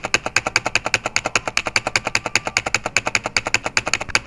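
Keyboard typing: a quick, even run of key clicks, about eight keystrokes a second.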